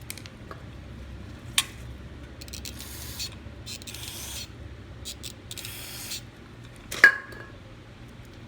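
Three short hissing bursts as white deposits are cleaned off a small-engine carburetor part, with a light click a second and a half in and a sharper metallic clink with a brief ring about seven seconds in.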